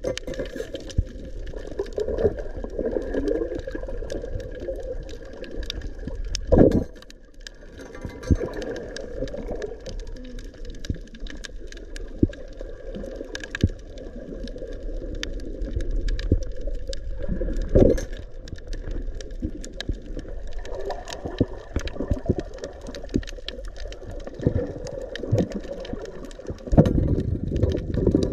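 Underwater sound heard through an action camera's housing: a muffled low water rumble with scattered crackling clicks and a few louder knocks.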